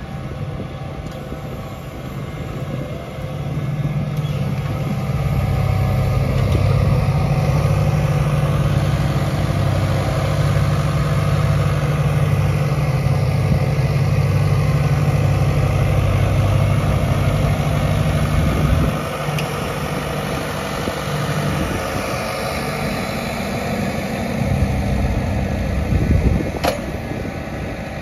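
Massey Ferguson 6S.155 tractor's diesel engine running under load as it pulls a reversible plough past, its note loud and steady. About two-thirds of the way through it drops to a lower, quieter drone, and a single knock comes near the end.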